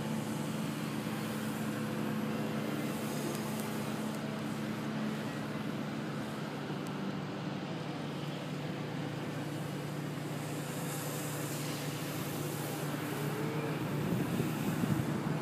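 Electric RC aerobatic plane, an Extreme Flight Laser with a Motrolfly brushless motor and 13x7 Xoar propeller, buzzing in flight, with city traffic hum underneath. Near the end the buzz gets louder and rises in pitch.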